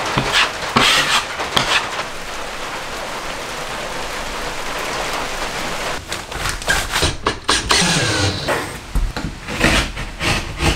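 Repeated scraping strokes of a drywall knife spreading joint compound on drywall. In the second half come irregular knocks and rubbing as drywall sheets are handled and cut.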